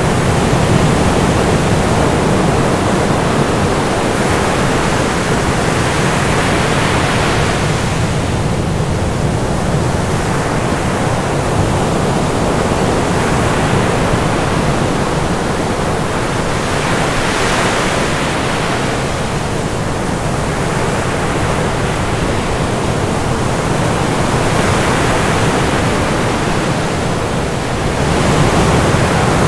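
Dense, steady rushing noise like heavy surf or falling water, its hiss swelling and easing slowly about every ten seconds.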